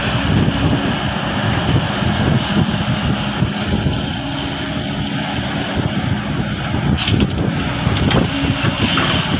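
Excavator's diesel engine running steadily under work, with a few short metallic knocks in the last few seconds.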